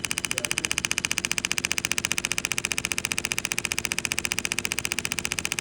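Kinetic-energy therapy machine pulsing against the Achilles tendon: a fast, even train of sharp clicks, about ten a second, held steady throughout.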